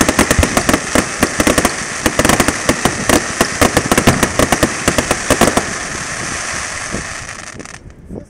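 Fireworks crackling overhead: a dense, rapid run of sharp pops from crackle-effect shells. About six seconds in the pops thin out into a fading hiss that cuts off shortly before the end.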